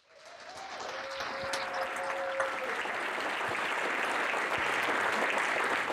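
Audience applauding, fading in at the start and settling into steady clapping. A single held tone stands out over the clapping for about two seconds near the start.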